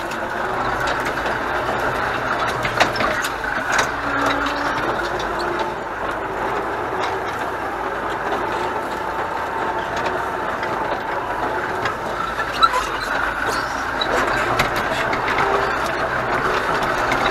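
Pronar MTZ-82A tractor's four-cylinder diesel engine running steadily as the tractor drives, heard from inside the cab, with a few sharp knocks and rattles from the cab and equipment.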